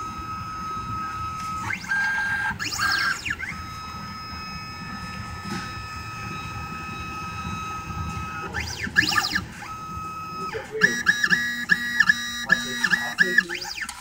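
Stepper motors of a 3D Xtreme CNC key machine moving its jaw and cutter into position over a tubular key blank before cutting. A steady high whine with several rising and falling pitch sweeps as the axes travel, then a quick run of short stepping tones near the end.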